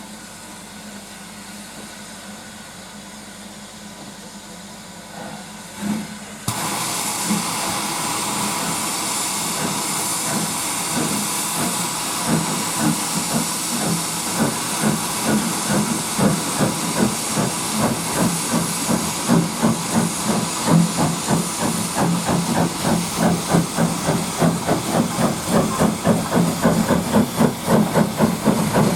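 Steam locomotive: a loud hiss of escaping steam cuts in suddenly about six seconds in, after a quieter start. Rhythmic exhaust beats then build up under the hiss and grow stronger as it gets going.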